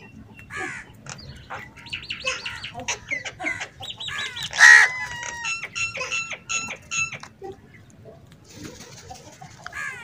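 A group of house crows calling while feeding: a run of short, varied calls and chatter, with one loud caw just under five seconds in, then a quieter stretch near the end.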